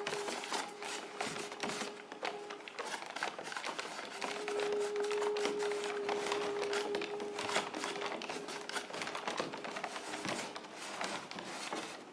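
A quiet passage of new chamber music for flute, viola and harp played with extended techniques: irregular clicks and taps, with a long held note through the middle.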